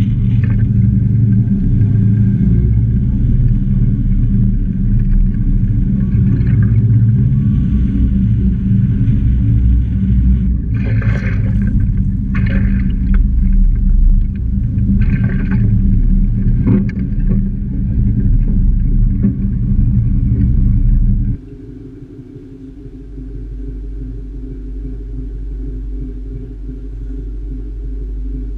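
Tractor engine running and a loaded grape trailer rumbling along the road as it is towed, with a few short rattling clatters around the middle. About two-thirds of the way through the sound cuts to a quieter steady hum.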